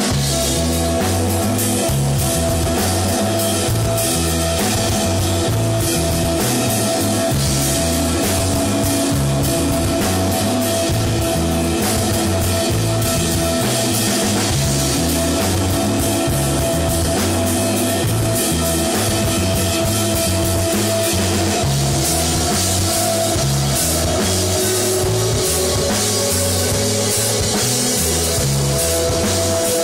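Post-rock band playing live: drum kit, bass and sustained electric guitar, loud and steady.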